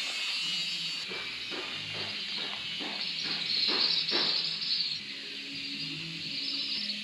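Insects chirring in a high, rapidly pulsing chorus, loudest about halfway through, with a few light knocks in the first half.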